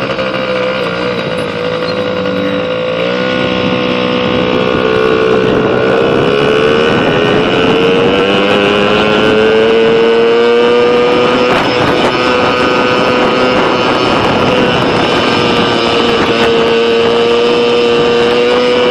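Pit bike's small single-cylinder engine running under way, its note wavering at first, climbing over several seconds and then holding steady.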